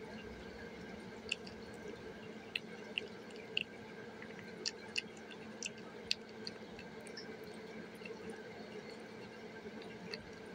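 A kitten chewing wet cat food from a plate: faint, irregular wet smacking clicks over a steady low hum.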